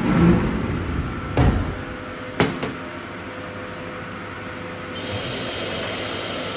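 Haas CNC mill in a machine shop: a few knocks and sharp clicks, then about five seconds in a steady high hiss and whir starts up and holds as the machine runs again.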